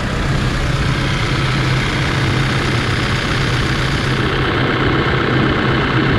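Diesel engine of a 2014 Case 580 Super N loader backhoe idling steadily with an even low hum.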